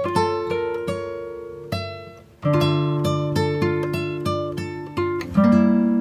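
Background music on plucked acoustic guitar, notes struck and left ringing one after another. The playing fades away a little past two seconds in, then comes back with a new, louder phrase.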